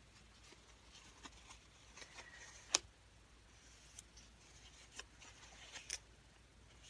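Quiet rustling of a crumpled paper towel as a paintbrush is wiped clean in it, with a few short, light clicks and taps of the brush.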